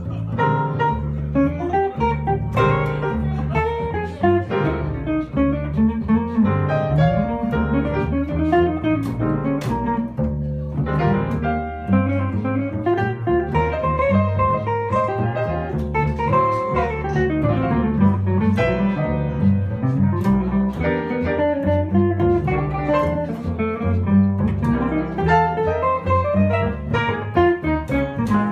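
Live jazz band: a hollow-body archtop electric guitar plays quick single-note runs that climb and fall, over an upright bass line and piano.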